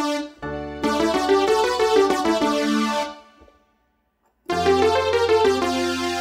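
Casio CT-S400 keyboard playing a trance poly-lead synth melody over held low chord notes, the melody filled out by the Auto Harmonize function once a left-hand chord is down. It plays in two phrases, the first starting about half a second in and the second after a pause of about a second.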